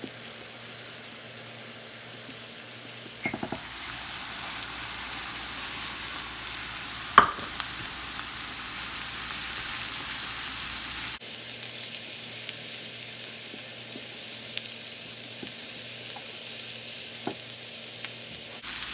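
Uncooked rice frying in oil and butter in a pan, a steady sizzle as it is stirred, growing louder about three seconds in. A single sharp clack about seven seconds in is the loudest sound.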